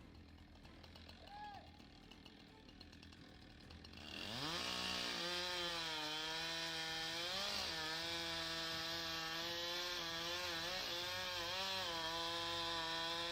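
A chainsaw revs up quickly about four seconds in, then runs steadily at high revs, its pitch dipping slightly now and then. Before it starts there is only faint background sound.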